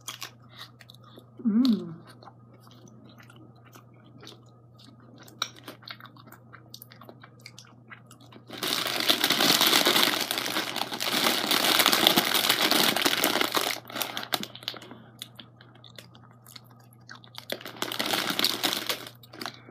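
Quiet chewing of a Ritter Sport strawberry cream chocolate bar. About eight seconds in, a clear plastic bag of candy crinkles loudly for about five seconds, and again briefly near the end.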